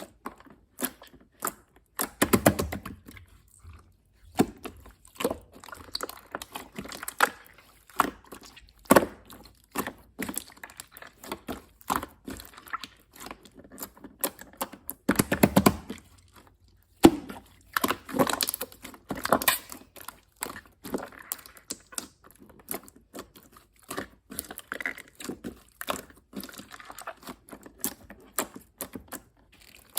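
Clear slime being squished and pressed by hand: a run of wet clicks and pops, with denser bursts of crackling about two, fifteen and eighteen seconds in.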